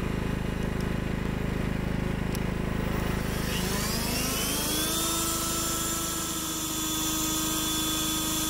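Steady mechanical rumble. About three seconds in, a motor spins up with a rising whine, then runs on at a steady pitch.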